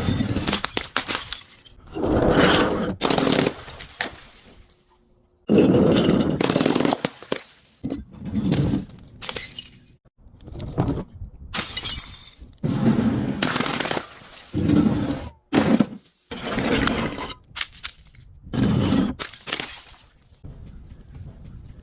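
Glass bottles being broken and crushed, a dozen or so separate crunching, shattering breaks, each lasting about a second or two, with short pauses between them.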